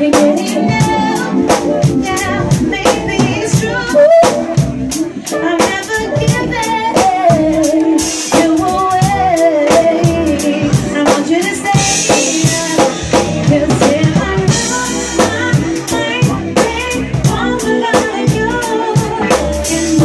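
Live band playing an R&B/soul groove: drums and hand percussion hitting steadily on the beat under a wavering melody line, with a few cymbal washes in the middle.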